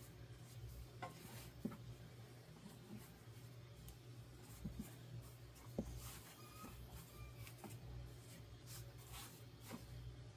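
Faint soft rubbing and patting of hands kneading and shaping a ball of sourdough bread dough on a floured silicone baking mat, with a few small scattered taps.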